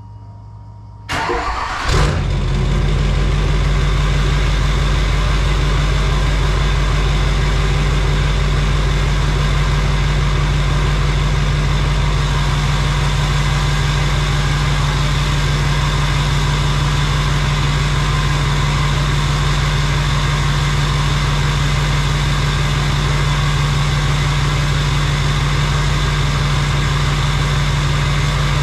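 LBZ Duramax 6.6-litre V8 turbo-diesel with a straight-pipe exhaust cranking about a second in, catching about a second later and settling into a loud, steady idle. It is the engine's first start after sitting for six months.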